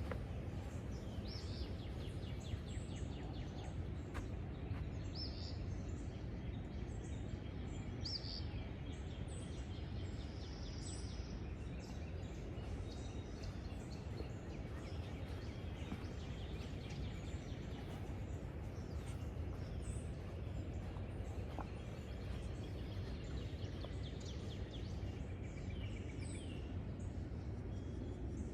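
Steady low outdoor background noise with birds calling briefly now and then, short high chirps scattered through.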